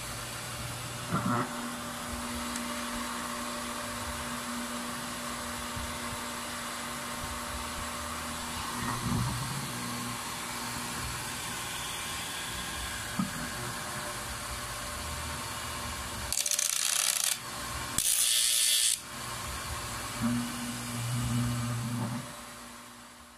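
Repaired half-horsepower electric surface water pump running on the bench with nothing connected: a steady motor hum with its cooling fan spinning, the pump now working properly. Two loud, noisy rushes of about a second each break in about two-thirds of the way through.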